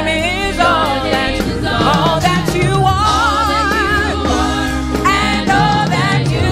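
Gospel worship song: a singer holds long notes with vibrato over a band.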